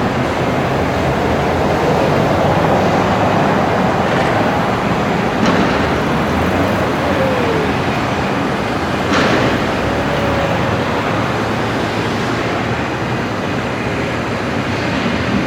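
Construction personnel hoist (man lift) running steadily as its cage climbs, a loud mechanical rumble with a couple of sharp knocks and a brief falling squeal.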